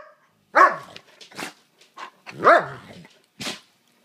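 Dog barking in play: two loud barks, about half a second and two and a half seconds in, with shorter sharp barks between them and another near the end.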